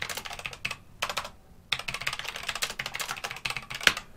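Fast typing on a computer keyboard: three runs of rapid keystrokes with short pauses between, the last and longest run filling most of the second half.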